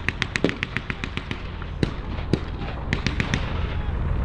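Distant small-arms gunfire firing blanks: a rapid string of about ten shots in the first second and a half, then scattered single shots, over a steady low rumble.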